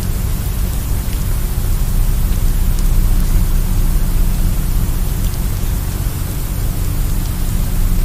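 Steady, loud hiss of analog broadcast static with a low hum beneath it and a few faint crackles.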